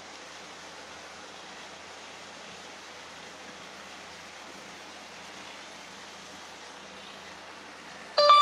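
Steady, even outdoor hiss of open-water background noise with no distinct event in it. Near the end a loud tune cuts in abruptly.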